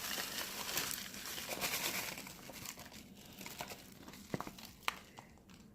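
Crinkling of a cut-open bag of pipe tobacco being handled, loudest in the first couple of seconds, then fainter with a few light clicks.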